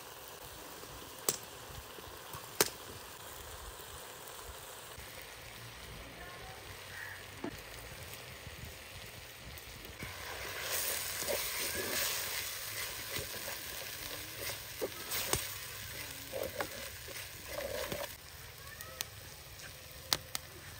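Food frying in hot oil in a karahi: a steady sizzle that swells a good deal louder about halfway through and eases again near the end, with a few sharp clicks at the start and near the end.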